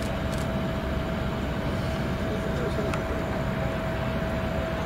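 Wide-body twin-engine jet airliner landing: a steady roar of its engines during touchdown and rollout, with a constant mid-pitched tone.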